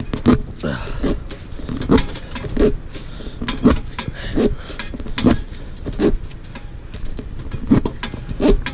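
A tire-plug reamer is worked in and out of a puncture in a motorcycle rear tire to open the hole to plug size. It makes repeated rasping plunges, about one a second, each with a short pitched rubbery squeak.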